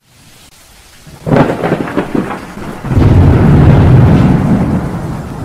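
Thunder: a crackling clap about a second in, then a long rolling low rumble that slowly dies away, over a faint hiss like rain.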